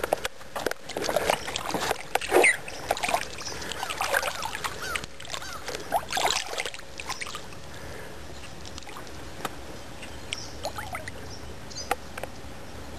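Water splashing and sloshing as a big bass is held at the surface by hand and released, the fish kicking in the water. The splashing is busiest over the first seven seconds, loudest about two and a half seconds in, then tapers to a few faint splashes.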